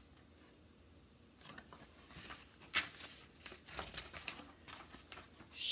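Paper pages of a picture book being handled and turned: a string of soft rustles and flaps, starting about a second and a half in, the loudest about halfway through.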